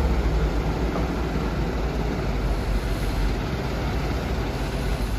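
An Iveco fire engine's diesel engine running as the truck moves slowly, a steady deep rumble.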